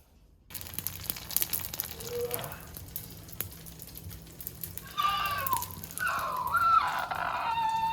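Food frying in a pan, a dense crackling sizzle, with eggs cooking. From about five seconds in, a louder, wavering, high-pitched sound that glides up and down sits over the sizzle.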